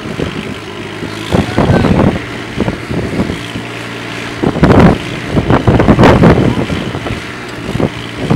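Farm tractor engine running under load as it pulls a heavily laden trailer up a slope. It runs steadily, with a louder rough burst near the start and several more in the middle.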